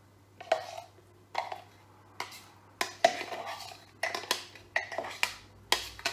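A spoon repeatedly knocking and scraping against a mixer jar and bowl, spooning blended yogurt chutney out into a serving bowl. About ten sharp clinks, irregularly spaced, most of them in the second half.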